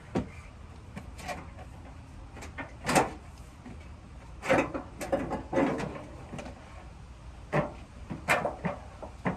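Irregular knocks, rattles and scrapes of a pickup's front-end body parts (fender liner and fender) being worked loose and pulled off by hand.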